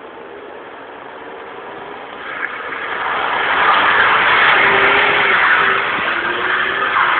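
Ford Mondeo drifting: its engine revs with a wavering pitch over a wide rush of tyre noise. It grows much louder from about two seconds in as the car slides closer.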